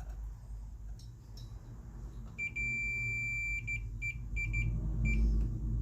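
Multimeter continuity tester beeping: one high beep of about a second, then four or five short, uneven beeps at the same pitch as the test probes make and lose contact on the receiver's power wiring.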